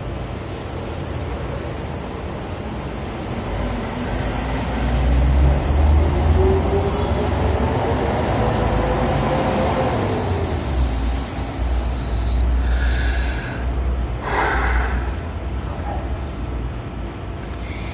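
City traffic noise from a large vehicle: a long loud air hiss with a low engine rumble whose pitch rises and then falls back, the hiss cutting off about two-thirds of the way through, then shorter mixed street sounds.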